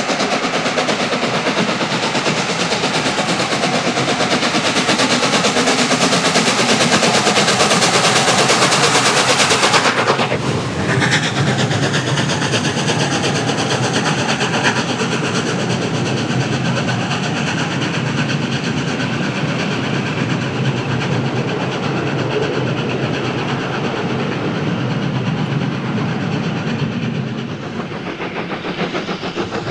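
Steam train running past on the rails. The noise builds for about ten seconds, changes abruptly, then carries on steadier and a little quieter, easing off near the end.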